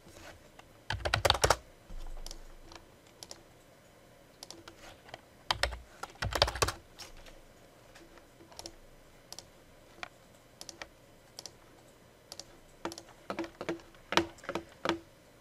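Computer keyboard keys and mouse buttons clicking in scattered taps, with two louder clusters of clacks and thuds about a second in and around six seconds, and a quicker run of keystrokes near the end.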